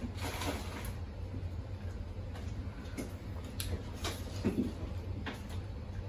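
Faint scattered clicks and mouth smacks of people chewing juicy pineapple slices, over a steady low hum. There is a brief hummed murmur about four and a half seconds in.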